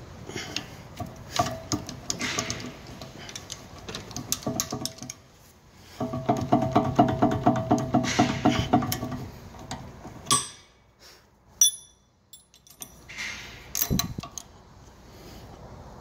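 A ratchet clicking in quick runs as the brake caliper bolts are tightened, with a few separate tool clinks and short pauses; the longest, loudest run of even clicks comes about six seconds in.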